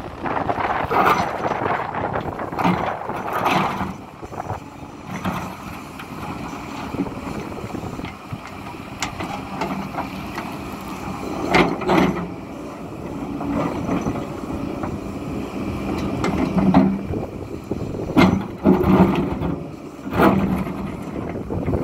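Hidromek 230LC excavator running as it works, a steady engine hum broken by several sharp knocks, twice near the middle and a cluster near the end.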